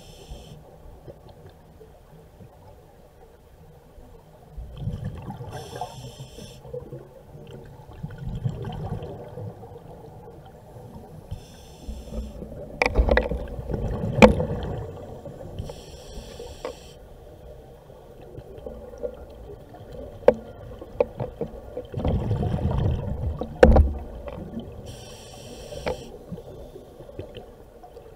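Scuba diver breathing through a regulator underwater: a short hiss with each inhalation every five seconds or so, and a rumble of exhaled bubbles between them. A few sharp clicks and knocks, loudest about a third of the way in and again near three-quarters.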